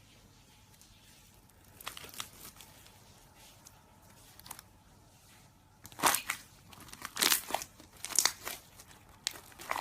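Slime being pressed and squished by hand, giving crackly, crunchy pops in short clusters. The pops grow louder and closer together after about six seconds.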